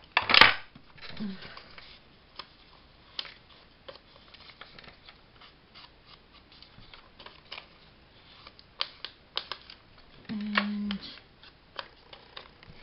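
Paper being handled on a craft desk: scattered light rustles, taps and clicks, with one sharp clack just after the start.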